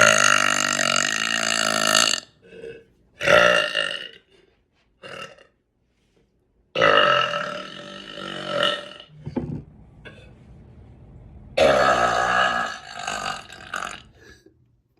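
A woman burping repeatedly: a long, pitched burp at the start, a shorter one a few seconds in, then two more long burps in the middle and near the end, with brief gaps between them.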